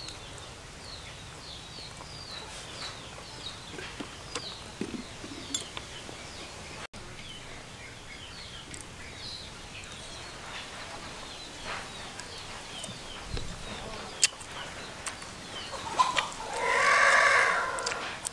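Chickens: short high peeping chirps repeated throughout, then a loud rooster crow lasting about a second and a half near the end. A few sharp clicks are scattered through.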